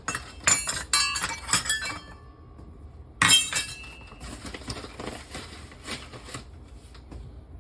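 Glassware clinking in the kitchen as flour is measured out. There is a quick run of ringing clinks in the first two seconds, one louder clink about three seconds in that rings on for a moment, then lighter taps.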